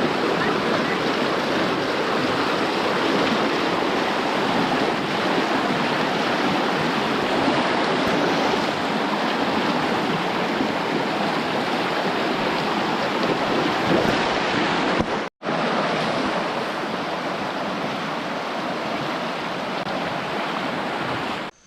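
Steady rushing of a river's flowing water, breaking off for an instant about fifteen seconds in.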